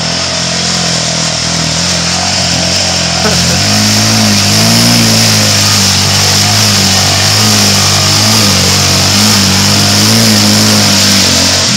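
Yamaha Raptor quad's single-cylinder engine held at high revs, stepping up about three and a half seconds in, while the rear wheels spin in deep mud and water, throwing up spray. The quad is bogged and struggling for grip.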